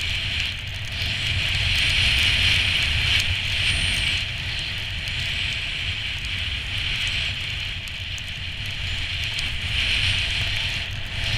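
Skis sliding and carving over packed snow, a steady scraping hiss that swells and fades, with wind rumbling on the microphone underneath.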